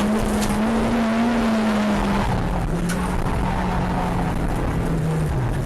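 Rally car engine running hard at speed, with tyre noise; the engine note drops in steps about two seconds in and again near the end.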